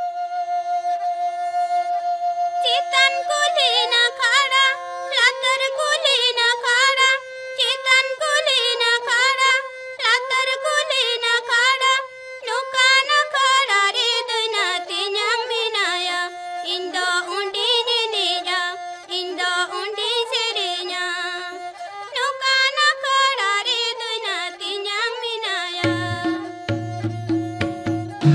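Opening of a Santali lagre song. A held instrumental note is joined after a few seconds by a singing voice carrying a wavering melody, and drums come in near the end.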